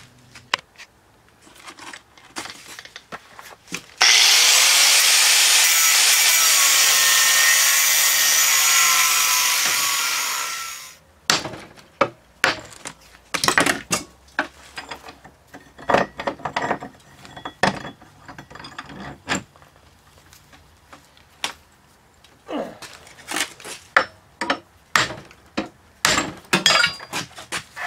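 Cutoff wheel cutting through a leftover lump on a cast iron casting for about seven seconds, a loud steady hiss that dies away as the wheel runs down. Before and after the cut, sharp knocks and clanks of the casting and vise being handled.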